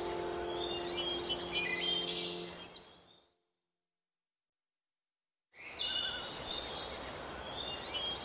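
Background track of recorded birdsong, chirping over a held ambient music chord. It fades out about three seconds in to dead silence, and birdsong starts again about two and a half seconds later without the chord.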